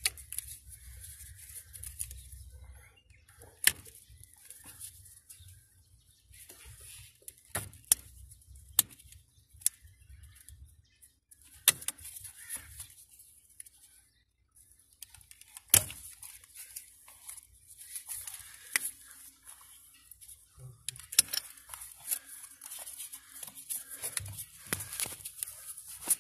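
A handful of sharp, scattered clicks with soft rustling between them as gloved hands work plastic wiring-harness connectors loose at a Toyota FJ's steering column, over a steady faint hiss.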